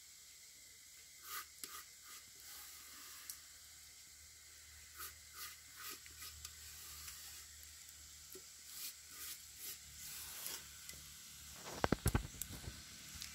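A hand scooping and scraping moist finger millet flour out of a blackened pot, soft intermittent scrapes and rustles over a faint steady hiss, with a short cluster of louder knocks about twelve seconds in.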